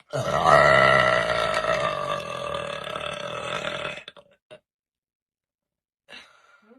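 A person's single long, loud burp lasting about four seconds, loudest near the start and trailing off.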